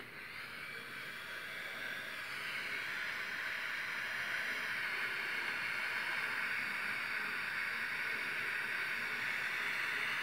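Steady hiss of ammonium dichromate decomposing as it burns, giving off nitrogen gas and leaving chromium oxide. It grows a little louder over the first few seconds, then holds.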